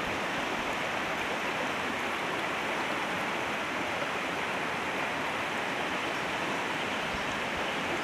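Swollen, muddy floodwater rushing steadily past and through concrete culvert pipes, a constant churning wash.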